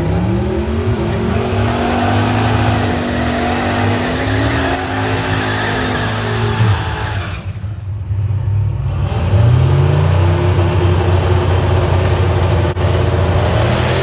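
Car engine running hard under acceleration. Its note holds high, drops away about seven seconds in, then climbs again from about nine and a half seconds.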